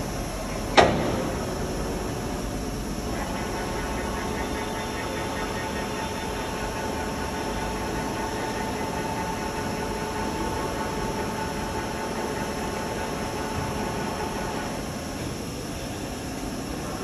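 Monarch VLN-14 CNC vertical turning center running. A single sharp clank comes about a second in. After that there is a steady mechanical hum, with a faint high whine from about three seconds in until near the end.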